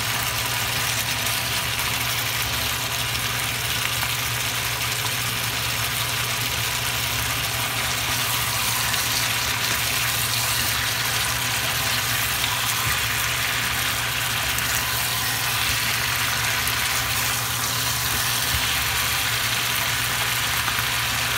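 Chicken drumsticks and ginger sizzling in a nonstick frying pan, a steady hiss as the chicken's own juices cook off, turned now and then with a spatula. A steady low hum runs underneath.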